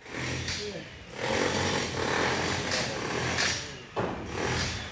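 A man talking, over a steady mechanical clatter and hum.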